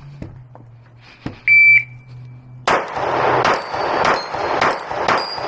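A shot timer's start beep, then a 9mm Glock pistol fired rapidly at a steel plate rack: about five shots roughly half a second apart, with the steel plates ringing on hits. The beep is the loudest sound.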